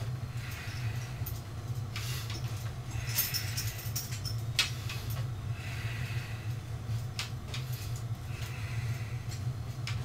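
Light metallic clinks and rattles at irregular moments from a barbell being raised and lowered by hand, over a steady low hum.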